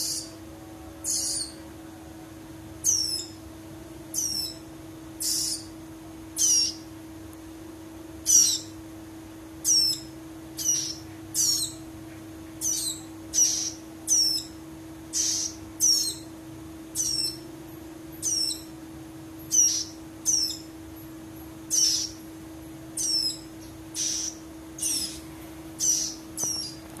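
Caged ciblek rowo (prinia) chicks giving short, high-pitched calls that sweep downward, repeated about once a second, over a steady low hum.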